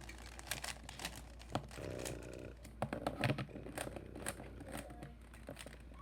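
Plastic Rubik's cube being turned by hand, its layers clicking in quick, irregular snaps.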